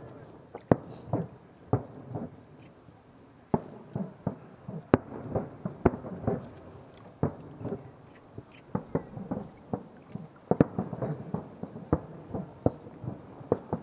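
Starmine fireworks bursting: an irregular run of sharp bangs, several a second at the busiest, with a short lull about three seconds in.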